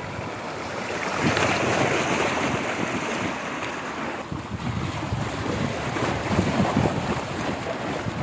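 Water rushing and splashing along a winding concrete water-slide channel under a rider's tube, with wind on the microphone. The rush gets a little louder about a second in.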